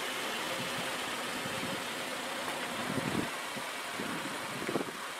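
A car engine idling steadily under outdoor background noise. Two dull bumps come about three seconds in and again near the end.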